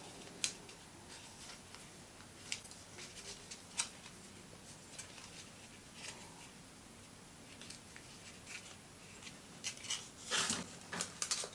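Thin drink-can aluminium being folded and crimped by hand with a small tool: light scattered clicks and crinkles, with a louder run of crinkling near the end.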